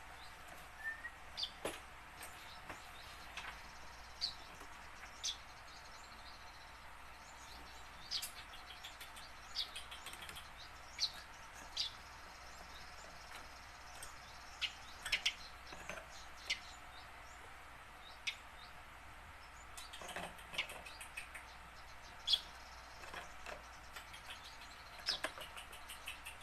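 Tame Eurasian tree sparrow practising its calls: short, sharp, high chirps at irregular intervals, sometimes several in quick succession, over a faint steady hiss.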